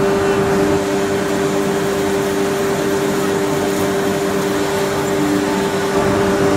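CNC router's 5.5 kW water-cooled spindle cutting a board, with its dust collector drawing air through the hose. A steady whine over a rushing noise, with a second, lower tone that comes and goes as the cut goes on.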